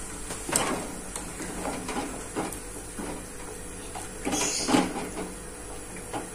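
Metal slotted skimmer clinking and scraping irregularly against an aluminium stock pot as broth is stirred, over a steady hiss from the boiling pot on the stove.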